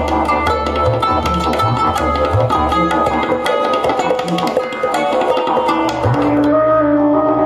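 Didgeridoo drone under a fast pattern of struck strings from a hammered dulcimer. About six seconds in, the music changes to a didgeridoo with steady held notes above it.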